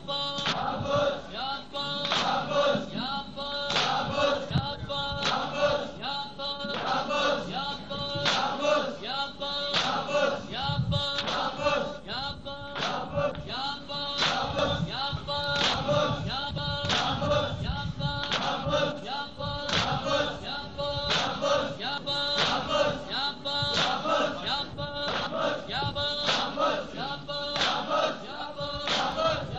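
Men chanting a nauha together in a steady rhythm while beating their chests in matam. The sharp hand-on-chest slaps fall on the beat under the sung lament.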